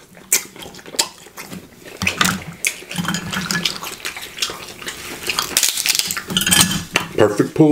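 Snow crab legs being snapped and cracked by hand: a run of sharp shell cracks and crackles, with wet squelching as the meat is pulled out of the shell.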